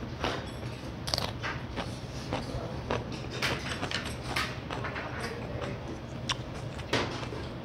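Close-miked crunching and chewing of a raw green chili pepper: a string of sharp, irregular crunches and mouth clicks over a low steady hum.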